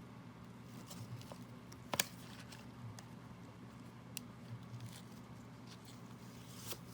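Faint handling of a trading card and its plastic holder: a few light clicks and taps, the sharpest about two seconds in, over a steady low hum.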